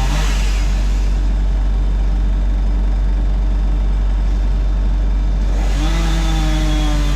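Excavator's diesel engine running steadily under hydraulic work. About six seconds in, its note gets louder and rises as the load comes on.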